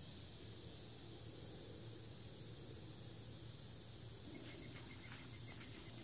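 Faint, steady high-pitched insect chorus, with a few faint separate chirps in the second half.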